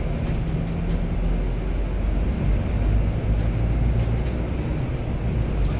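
Steady low rumble of a city bus driving, heard from inside the cabin: engine and road noise with a hum that shifts slightly in pitch, and a few faint ticks or rattles.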